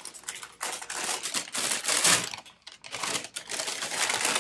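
A small packaging bag crinkling and rustling as it is handled and opened, in quick irregular crackles.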